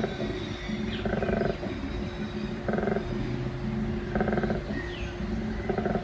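Koala bellowing: a deep, snoring drone broken about every one and a half seconds by louder, belching pulses, repeated in a steady rhythm. This is the call of the breeding season, a male's call to females or a territorial warning.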